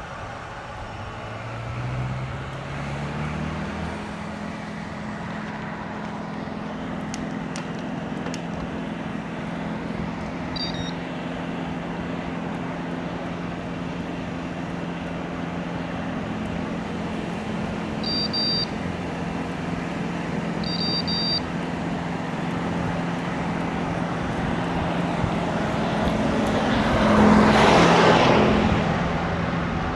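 Riding noise on a road bike, with a steady hum that climbs in pitch over the first few seconds and then holds. Three short electronic beeps from the bike computer come about ten, eighteen and twenty-one seconds in. A motor vehicle passes close near the end, swelling loudly and then fading.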